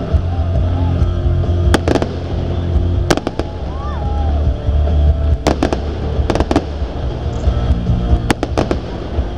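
Fireworks shells bursting in the air with sharp bangs, often in quick pairs, every one to two seconds. Under them runs music with a heavy low bass.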